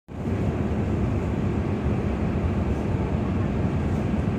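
Steady low rumble of a ferry under way, with no clear rhythm or pitch.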